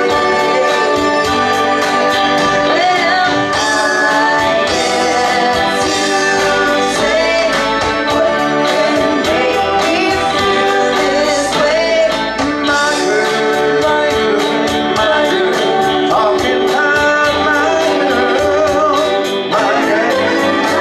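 Live band music: singing over electric guitar and keyboards, with a steady high tick about four times a second.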